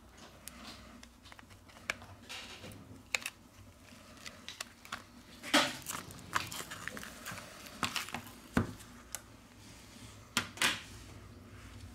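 Scattered small clicks and taps of repair tools and fingers working on a smartphone's casing as it is opened, with a few sharper clicks about halfway through and near the end.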